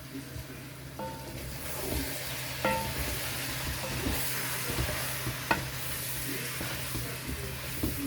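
Seasoned chicken sizzling in hot oil in a pot, the sizzle growing louder about a second and a half in. A spoon stirs it, knocking against the pot a few times, once with a short metallic ring.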